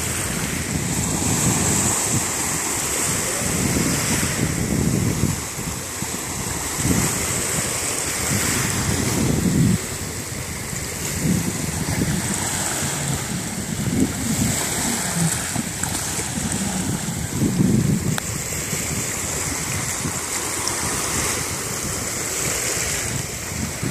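Small sea waves washing onto a stony shore, with wind gusting against the microphone.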